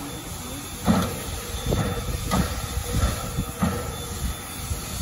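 Steam locomotive 1309, a 2-6-6-2 Mallet, standing at idle and puffing: five sharp chuffs a little under a second apart, over a steady hiss and low rumble.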